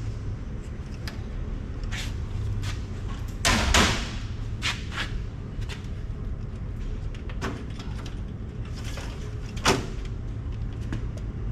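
Circuit boards being handled and slid against metal rack hardware: scattered clicks and knocks, a louder clatter about three and a half seconds in and a sharp knock near the end, over a steady low hum.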